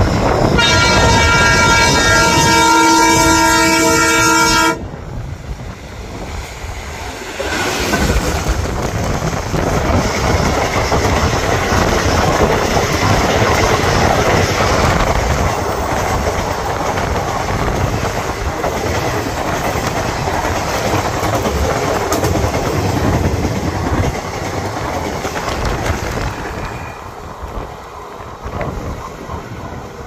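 Indian Railways diesel locomotive blowing its horn, one loud multi-tone blast of about four seconds that cuts off abruptly. Then the passenger coaches pass at speed with wheels clattering over the rail joints, fading near the end as the train moves away.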